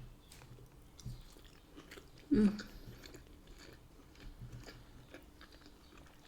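Close-up chewing of food: soft, scattered wet mouth clicks, with one louder short mouth sound about two and a half seconds in.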